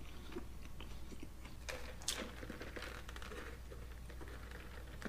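A person chewing a mouthful of hamburger with lettuce and tomato: a run of small wet mouth clicks, with a louder crunch about two seconds in.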